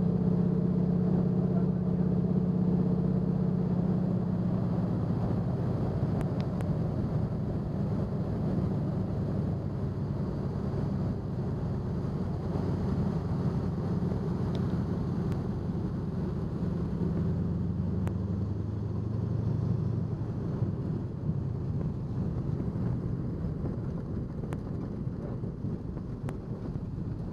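Floatplane's engine and propeller running steadily through the descent to the lake, the engine note dropping lower in the second half as power comes off for touchdown on the water.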